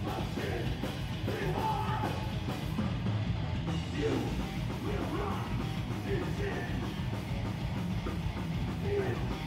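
Live heavy rock band playing loud, with distorted electric guitar, bass and drums and a shouted vocal over them.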